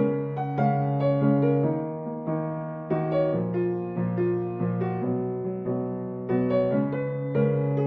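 Background music: chords of held notes, with new notes struck every half second or so.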